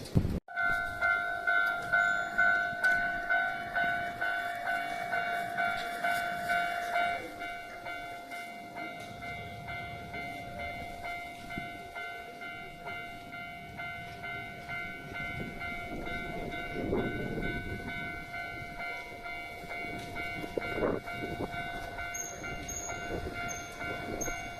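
Japanese railway level-crossing warning bell ringing in a steady fast rhythm, about two strikes a second. It drops in loudness about seven seconds in. A train then rumbles over the crossing with clattering wheels, and short high squeals come near the end.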